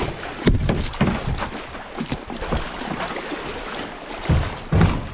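A small boat knocking and scraping against an undercut rock bank as the current pins it there, with branches brushing past and water rushing. There are several heavy thuds about half a second in and again near the end.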